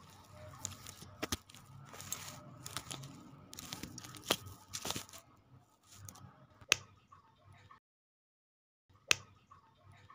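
Small plastic building bricks being handled and pressed together: sharp clicks as pieces snap on, several times, among light rustling and rattling of loose parts.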